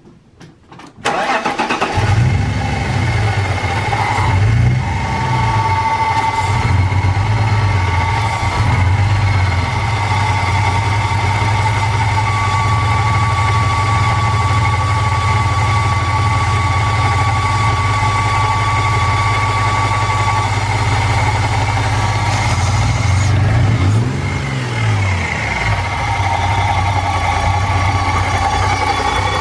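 Car engine in a BMW E46 330i starting about a second in, then running steadily, with a couple of brief revs early on and again near the end.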